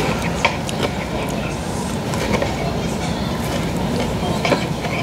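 Spoon and fork clinking now and then against bowls and plates during a meal, over a steady background rumble.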